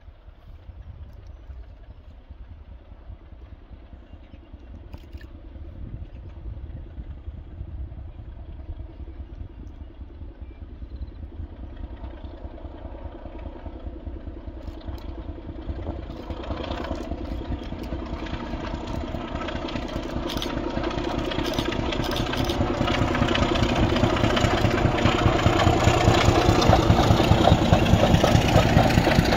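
Class 26 diesel locomotive 26007, with its six-cylinder Sulzer engine, approaching and growing steadily louder. The engine's steady drone fills out over the second half, and it is loudest near the end as the loco draws close.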